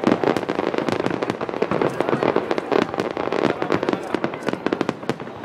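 Aerial firework shells bursting in a dense, rapid barrage, many sharp bangs a second overlapping one another.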